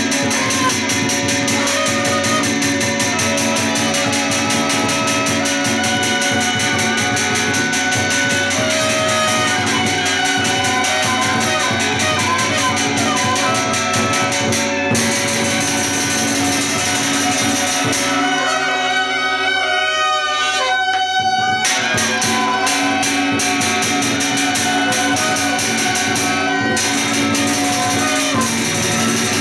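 Chinese ritual band music: suona shawms playing a steady, reedy melody over continuous clashing percussion. The percussion drops out briefly just after halfway while the shawms carry on.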